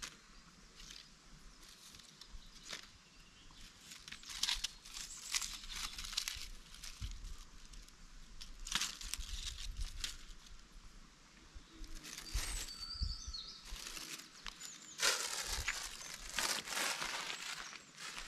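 Irregular crinkling and rustling of handled material, coming and going in short spells, with a few faint bird chirps.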